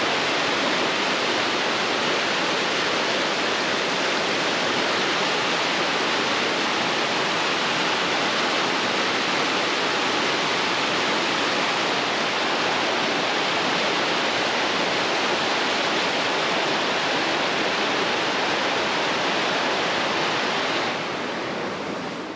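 River rapids: loud, steady rushing white water, which drops away abruptly near the end.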